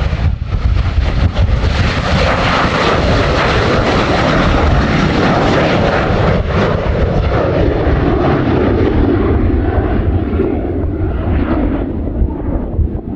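Boeing P-8A Poseidon's two CFM56 turbofans at takeoff power during liftoff and climb-out, a loud, steady jet roar with a deep rumble underneath. The higher part of the noise thins out from about nine seconds in as the jet climbs away.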